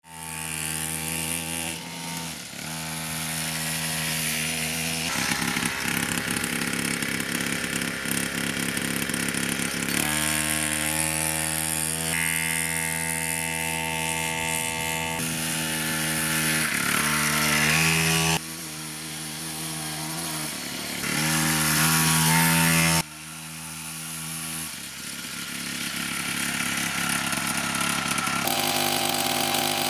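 49cc two-stroke minibike engine running and revving, its pitch rising and falling with the throttle, in several short clips that cut abruptly from one to the next.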